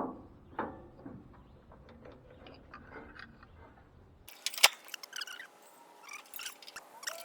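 Faint clicks and knocks of hand tools working a hose clamp on a tractor radiator. About four seconds in the sound changes abruptly to a denser run of thin, high clicks and scrapes with a few sharp loud clicks.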